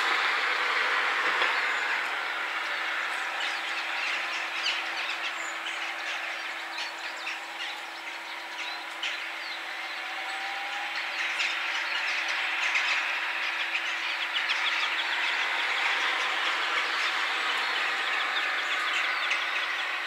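Steady background noise of passing vehicles, easing off toward the middle and building again, over a low steady hum, with scattered short high chirps.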